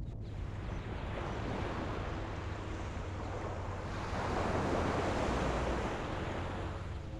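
Ocean surf washing in against the shore, swelling into a louder wave about four seconds in, with wind on the microphone and a low steady hum underneath.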